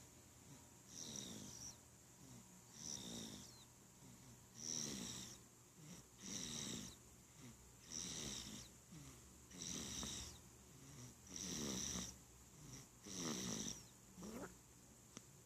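A 51-day-old baby snoring in sleep, one short snore with each breath, about one every one and a half to two seconds, nine in all.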